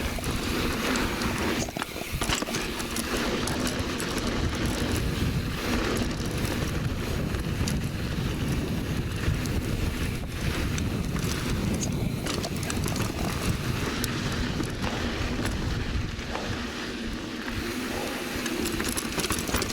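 Mountain bike ridden on a dirt singletrack: tyres running over loose, dry ground, with the bike rattling in frequent small clicks and knocks, and wind rumbling on the microphone.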